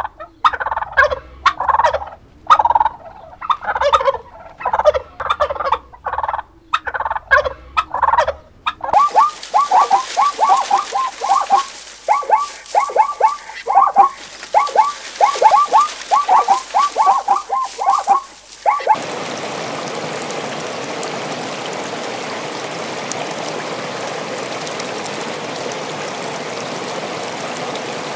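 Domestic turkeys gobbling in short repeated calls for about the first nine seconds. They give way to a quick run of short, falling chirps lasting about ten seconds, and then a steady, even hiss.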